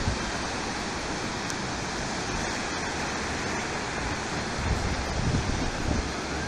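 Surf washing onto a sandy beach, a steady rush of small breaking waves, with wind buffeting the microphone in the second half.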